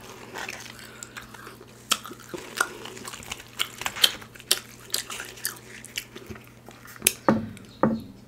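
A person chewing and biting Indian food close to the microphone: irregular wet mouth clicks and smacks, with two louder ones near the end, over a faint steady low hum.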